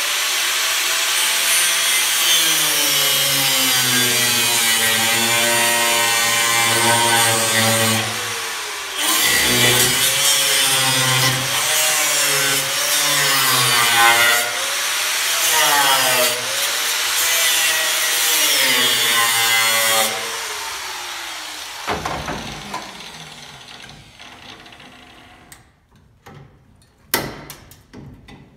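Angle grinder with an abrasive disc grinding the rusty steel flange left over from an old quarter panel off a car body. Its motor whine dips and rises as the disc bears on the metal, eases off briefly about eight seconds in, then the grinder is switched off about twenty seconds in and winds down. A few sharp metal clinks follow near the end.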